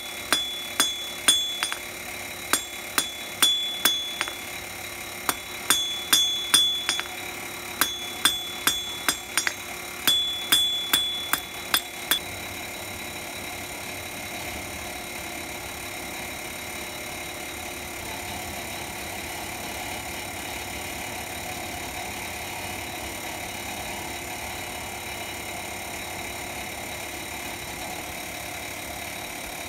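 Blacksmith's hammer striking thin steel bar stock on an anvil, each blow ringing brightly, in quick bursts of four or five with short pauses between. The hammering stops about twelve seconds in, leaving only a steady background hum.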